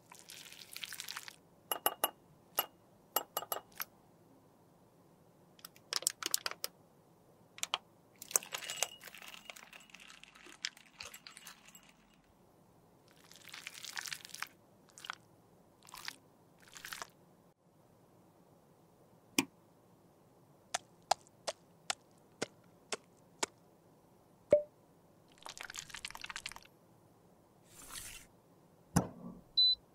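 Hands working on cosmetics: short scraping, crunching strokes about a second long, between sharp clicks and taps at irregular intervals.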